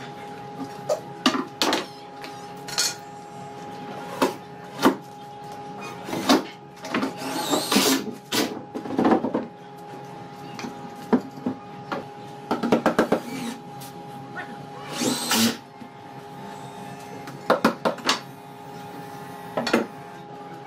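Knocks and taps of wooden panels being fitted into a wardrobe carcass, with several short bursts of a cordless drill driving screws. A steady hum runs underneath.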